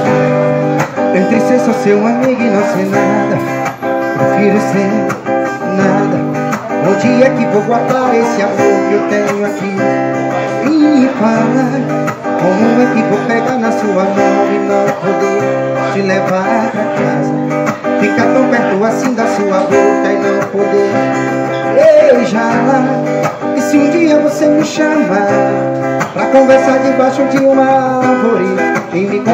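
Steel-string acoustic guitar strummed in a steady rhythm, with the chords changing every second or two.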